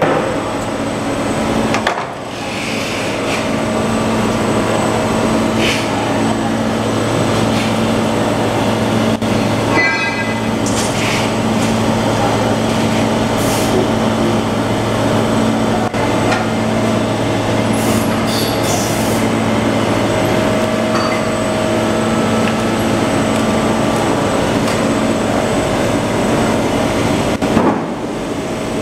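Butyl rubber tape hot-melt coating machine running: a loud, steady mechanical hum from its motors and rollers, with a few short clicks and knocks.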